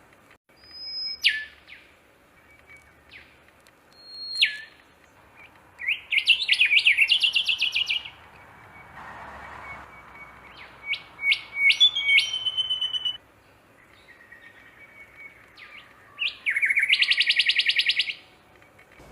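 Songbirds singing: short high whistles that drop sharply in pitch, between two loud, rapid trills of evenly repeated notes, each about two seconds long.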